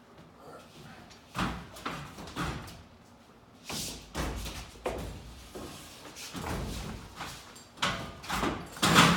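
A drywall sheet being handled by hand, tipped up and lifted overhead onto a ceiling: irregular knocks, thumps and scrapes starting about a second and a half in, with the loudest thump near the end.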